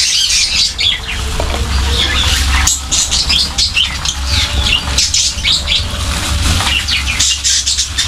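Flock of budgerigars and other small cage birds chattering: many overlapping short, high chirps and squawks without a break.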